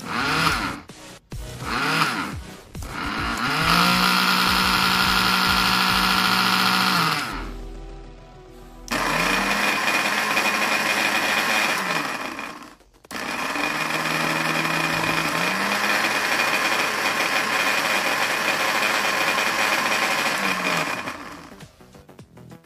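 Noon East BL9702H-CB 500 W blender motor running with nothing in it. It gives a few short bursts, then three longer runs of several seconds each. Each run spins up with a rising whine and winds down with a falling whine as it is switched off.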